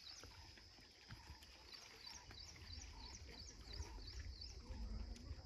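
Faint outdoor ambience: a small animal giving a run of short high chirps, about four a second, over a steady high whine and a low rumble.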